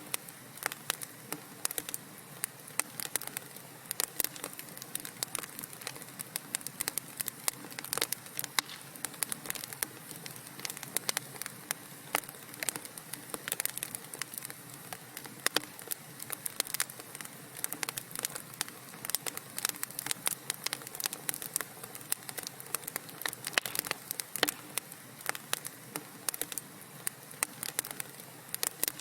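Wood fire crackling in a fireplace: dense, irregular sharp pops and snaps over a steady soft hiss.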